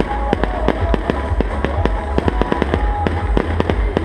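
Fireworks display going off in quick succession: many sharp bangs and cracks every second over a deep, continuous booming.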